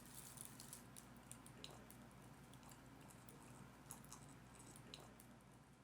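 Near silence with faint, scattered small clicks and ticks over a low hum.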